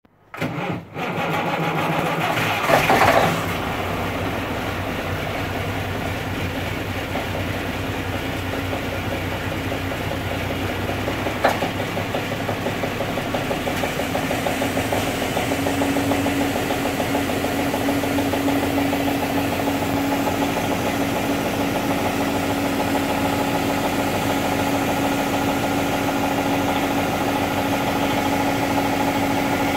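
Cummins N14 525 inline-six diesel cold-starting after several days at sub-freezing temperatures: it cranks and catches within about a second, runs louder for a moment about three seconds in, then settles into a steady idle. A single sharp click comes about eleven seconds in, and a steady hum joins the idle at about fifteen seconds.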